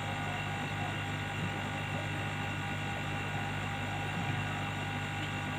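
Steady low hum with a faint even hiss, unchanging throughout, and no distinct clicks or knocks: background room tone.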